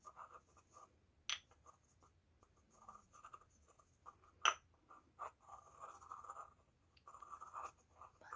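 Soft, close-miked scratching and rubbing sounds, with a sharp click about a second in and a louder one about halfway through.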